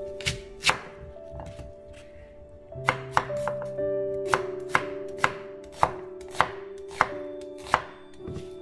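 Chef's knife slicing through a peeled onion and striking a wooden cutting board: two cuts at first, then from about three seconds in a steady run of about one cut every half second.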